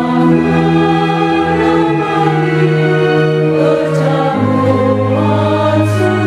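Church choir singing a hymn with electronic organ accompaniment, in long held chords that change about two and four seconds in.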